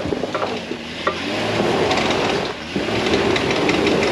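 Jeep Wrangler engine running at low revs as it crawls up a rocky, rutted trail, over gritty crunching and crackling. The engine note comes up more strongly about three seconds in.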